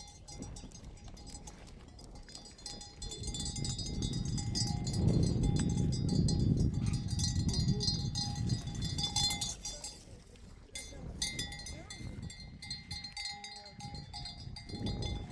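Metal livestock bells clanking and ringing steadily, with a brief break about ten seconds in, over a low rumbling noise that is loudest in the middle.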